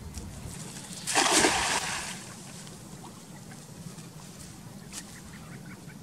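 A single loud splash of water about a second in, lasting about a second, over a steady low background noise.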